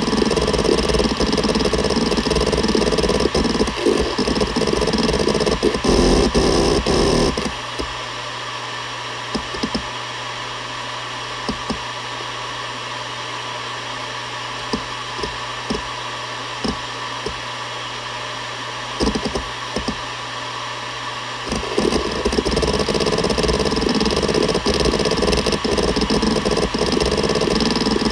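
Seagate Barracuda ES.2 ST31000340NS 7200 rpm hard drive seeking rapidly in a continuous chatter of head clicks, over the steady whir of its spindle. About seven seconds in the seeking drops away to the spindle whir alone with scattered single seek clicks, and rapid seeking resumes about twenty-one seconds in.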